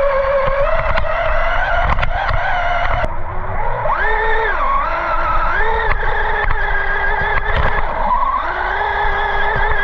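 Traxxas Rustler 4x4 VXL's brushless electric motor whining as the RC car is driven, its pitch stepping up and down with bursts of throttle: up about four seconds in, down, up again, and up once more toward the end. A constant low rumble runs beneath it.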